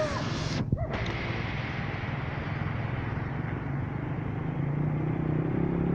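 Low engine rumble of passing road traffic, growing louder over the last couple of seconds as a vehicle comes closer.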